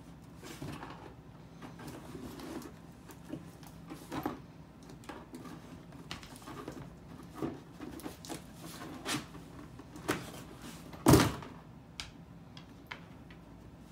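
Cardboard diaper box bumped and scraped across a hardwood floor by a dog nosing into it after hidden food, with scattered knocks and one loud thump about eleven seconds in.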